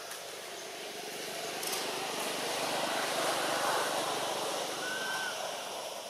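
A vehicle passing by, its noise swelling to a peak midway and fading away, with a short high call about five seconds in.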